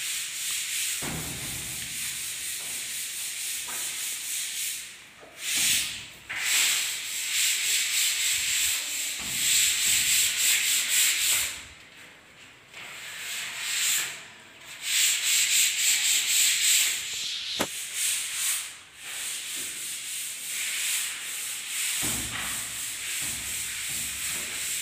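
Sandpaper rubbed by hand over dried wall putty in rapid back-and-forth strokes, a rasping hiss that stops briefly a few times and starts again. The putty is being smoothed and levelled before painting.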